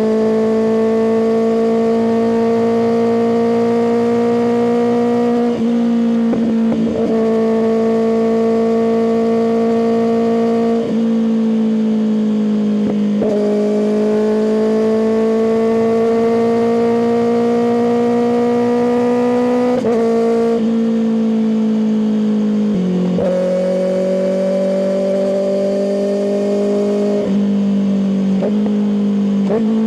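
Kawasaki ZX-6R's inline-four engine running through an M4 aftermarket exhaust while riding. The engine note climbs slowly for stretches of several seconds, broken every few seconds by short shifts in pitch, as with gear changes.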